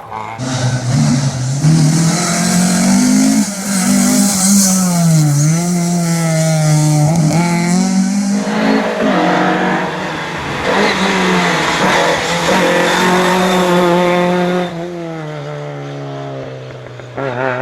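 Fiat 131 Abarth rally car's twin-cam four-cylinder engine revving hard, its pitch rising and falling repeatedly as it goes through the gears, with a loud hiss over the first half. About 15 s in it drops to a lower, steadier note.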